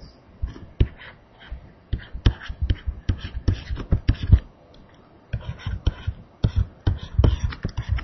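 A pen drawing on the writing surface close to the microphone: a quick, irregular run of sharp taps and scrapes. The strokes come in two clusters with a short pause near the middle.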